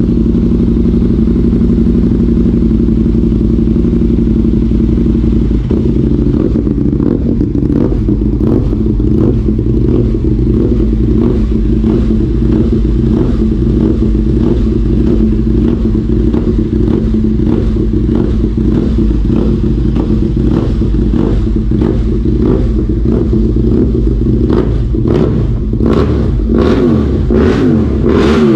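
Aprilia V4 motorcycle engine running at a steady idle, with sharp clattering ticks that become louder and more frequent in the last few seconds.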